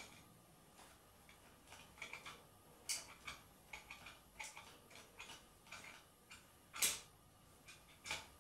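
Faint, irregular ticks and clicks as the acrylic magnet rotor of a small homemade magnetic generator is turned and flicked round by hand, with a louder sharp click about seven seconds in.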